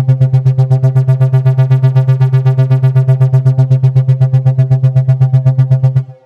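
Software synthesizer bass patch (Arturia Pigments) holding one low note that pulses rapidly, about ten pulses a second, from an LFO modulating its volume, with distortion in the effects stage. The note stops about six seconds in.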